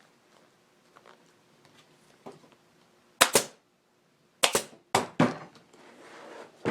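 Staple gun driving staples through a motorcycle seat cover into the seat pan: a run of about six sharp snaps, mostly in close pairs, between about three and five seconds in.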